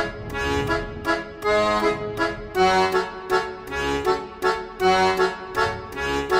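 Background music: an instrumental tune of held, reedy melody notes over a steady beat of about two strokes a second.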